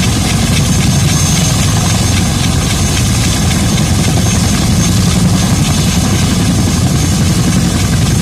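Boeing CH-47 Chinook tandem-rotor helicopter running loud and steady: a deep rotor beat with a thin high whine held over it.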